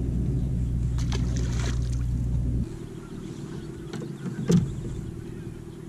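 Steady low hum of a bass boat's motor, cut off abruptly about two and a half seconds in. Then a quieter stretch with one sharp knock on the boat about four and a half seconds in.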